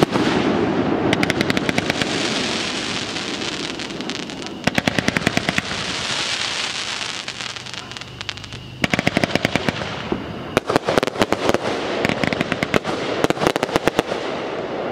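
Fireworks going off: four quick runs of sharp pops, several a second, over a steady crackling, as from firework cakes firing in rapid succession.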